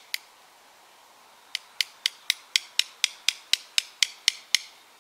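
A homemade squirrel call: a quarter cupped tight in the hand as a drum head, tapped with a second quarter. One tap, then a run of about thirteen sharp metallic clicks at about four a second, imitating a squirrel opening a nut.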